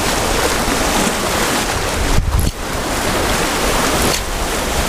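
Ocean surf washing against a rocky shoreline, a steady rush of water with a surge a little past the middle.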